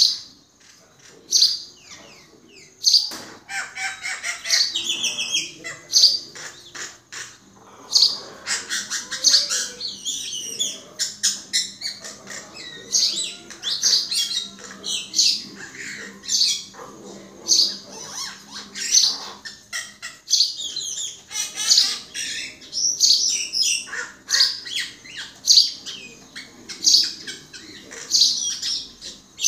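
Common myna (brown myna) calling in a varied, rambling run of chirps, whistles and harsh squawks. A few sharp calls come first, and from about three seconds in the calls run almost without a break.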